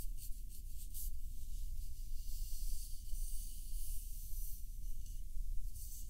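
Close, continuous scratchy rubbing and stroking over a plush toy's fur, a hiss that thickens about two seconds in, over a steady low hum.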